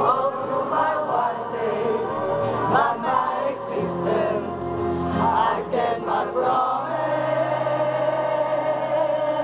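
Live arena concert music: many voices singing together like a choir over held chords, recorded from within the crowd.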